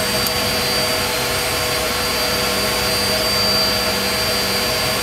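Steady machinery drone in the Avro Vulcan cockpit, with a constant low hum and a thin, high-pitched whine held throughout.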